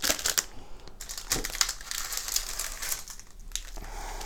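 Plastic packaging crinkling and rustling in irregular bursts as packs of cooking chocolate are handled.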